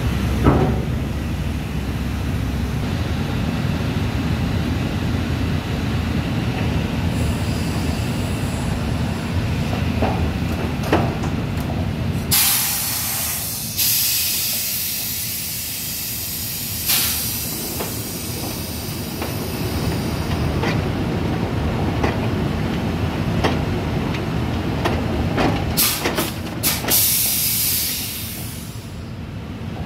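Drilling rig floor machinery running with a steady low rumble while drill pipe is broken out with a power tong, with scattered metal clanks. Loud hissing comes for several seconds around the middle and again in short bursts near the end.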